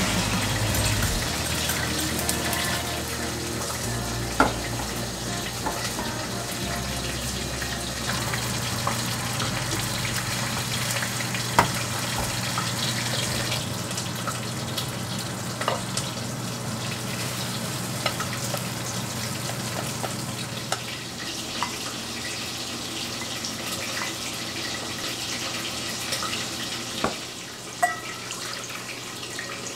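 Beaten egg with chopped scallions frying in a small nonstick pan, a steady sizzling hiss. A few sharp clicks of a silicone spatula against the pan stand out above it.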